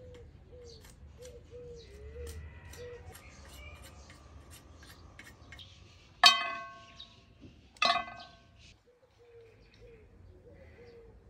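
Wooden sticks set down on a glazed ceramic plate: two ringing clinks about a second and a half apart, the first the louder. Before them, crisp snapping and rustling of leaves stripped from green branches, with a bird chirping over and over.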